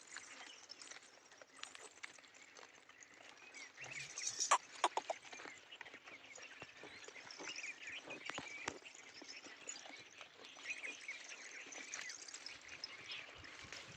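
Goat-yard sounds: scattered short knocks and clicks like hooves moving on the ground, with small chirps throughout. There is a louder cluster of knocks about four to five seconds in.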